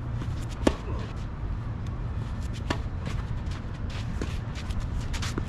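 Tennis racket striking the ball on a serve about a second in, a sharp pop, then a fainter hit from the far end of the court about two seconds later, over a steady low rumble.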